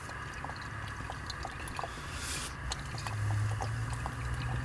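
Worcestershire sauce pouring in a thin trickle from a narrow-necked glass bottle into a small metal saucepan, with scattered faint ticks and drips. A low hum comes in about three seconds in.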